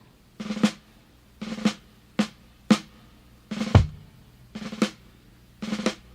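Solo drum kit playing a march-like pattern: short snare rolls leading into accented snare hits about every half second, with a bass drum stroke near the middle.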